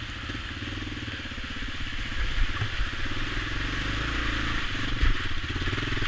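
Honda XL500S single-cylinder four-stroke engine running under way on a rough dirt trail, a steady thumping exhaust note that picks up a little about two seconds in. A couple of dull thumps from the bike hitting bumps at about two and a half and five seconds.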